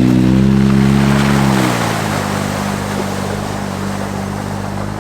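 Off-road 4x4's engine running under load, its pitch dropping about a second and a half in and settling to a steady lower note, with a rushing noise over it.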